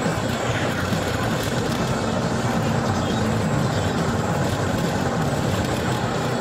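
Steady engine and road noise of a car driving at highway speed, heard from inside the cabin.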